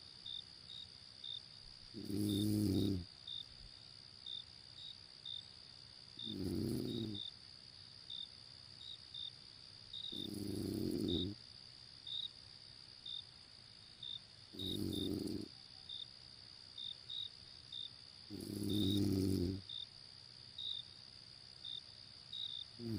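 A person snoring in slow, regular breaths, one low rasping snore of about a second roughly every four seconds. Crickets chirp steadily in the background.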